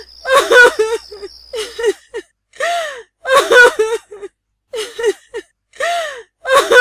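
A woman crying: long rising-and-falling wails, each followed by a few short gasping sobs, repeating about every three seconds.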